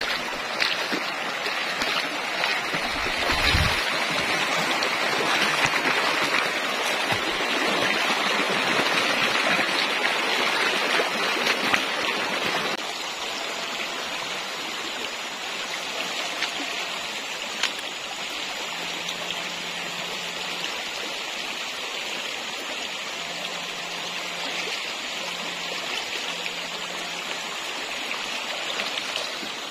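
Shallow rocky stream rushing over stones and small rapids, a steady rush of water. It is louder for the first dozen or so seconds, then drops suddenly to a quieter, even flow about thirteen seconds in.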